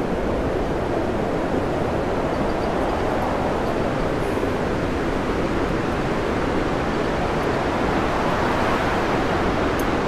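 Storm wind and heavy sea at sea, a steady, even rush of noise.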